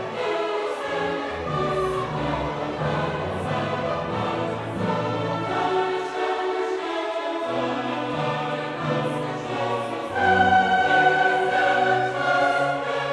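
Choir and orchestra performing classical choral music, with sustained sung notes over the orchestra.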